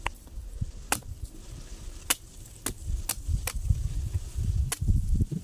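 Machete chopping into the husk of a green young coconut to cut it open: about seven sharp strikes at an uneven pace.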